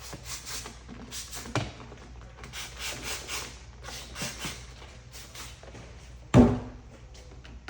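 A trigger spray bottle of alcohol-water mix misting along the top edge of paint protection film on a car mirror, in a series of short hissing strokes. A single loud thud comes about six seconds in.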